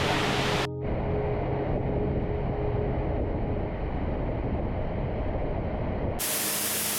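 Steady rush of a waterfall's falling water. About a second in it turns abruptly muffled and deeper, and it turns bright again near the end.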